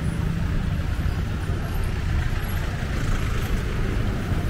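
Steady city street traffic noise: a low, continuous rumble of passing vehicles.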